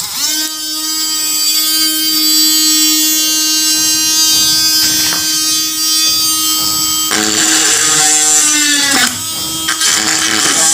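Homemade drill built from a small brushed DC motor with a brass collet chuck spinning up with a quick rising whine as its lead is clipped on, then running at a steady high whine. After about seven seconds it turns rougher and the pitch sags as the bit is pushed into a sheet of board.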